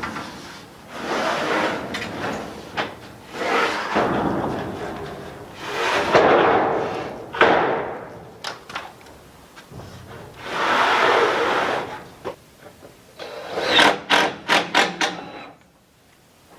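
Work on a steel roof: four rough, noisy scraping bursts a second or two each, then a quick run of about half a dozen sharp knocks near the end.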